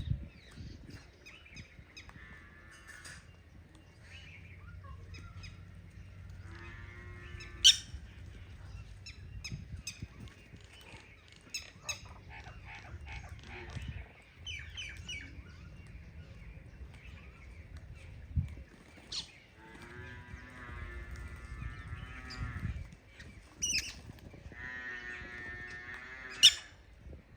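Crows calling, with three long, wavering lowing calls from cattle and a few sharp clicks.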